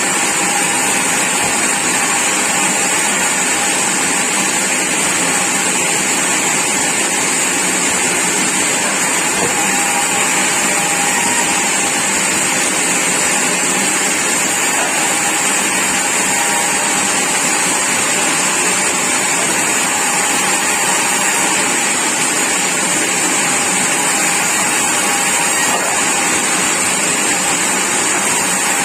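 A sawmill saw running steadily, a loud even machine noise with a strong high hiss and a faint steady tone, unchanging throughout.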